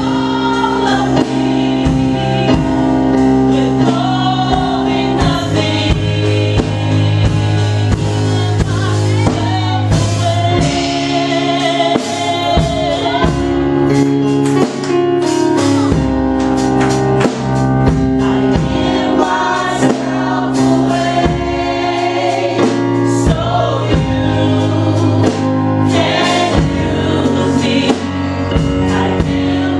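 Live gospel worship song: a small mixed group of men and women singing together at microphones, accompanied by keyboard.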